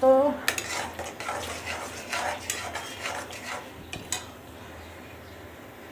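A metal spoon stirring thick paneer gravy in a kadhai, scraping the stuck gravy off the pan's sides in a run of short strokes. The stirring stops about four seconds in.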